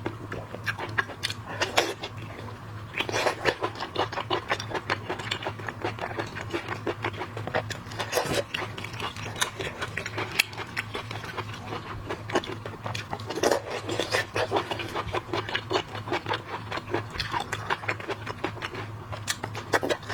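Close-miked eating of shellfish: a dense run of crackling clicks and scraping as shells are cracked and peeled and the meat is chewed, with a few louder snaps, over a steady low hum.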